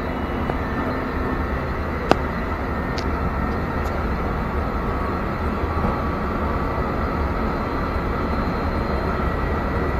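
Steady rumble of a passenger train running, heard from inside the carriage. A single sharp click about two seconds in, with two fainter ticks a second and two seconds later.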